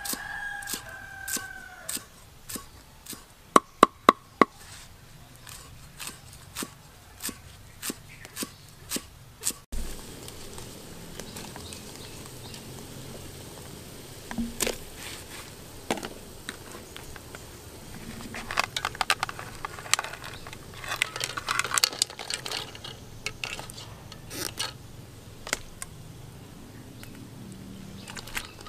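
Kitchen clatter of scattered knocks and clicks, with four sharp ringing clinks in quick succession about four seconds in and a busier run of clicking around twenty seconds in.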